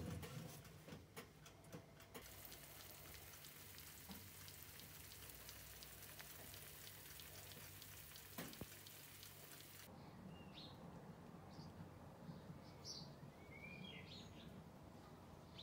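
Faint sizzling and ticking of stuffed round courgettes baking in a glass dish in the oven, over a low steady oven hum. About ten seconds in it cuts to a quieter background with a few short bird chirps.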